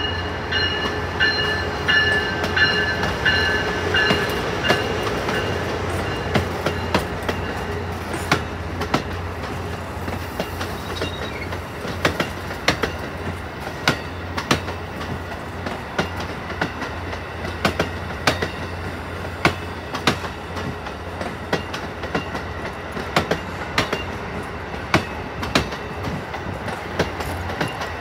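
Electric passenger train rolling past close by, its wheels clicking sharply and irregularly over rail joints under a steady low rumble. A high-pitched whine sounds through the first few seconds as the power car goes by, then fades.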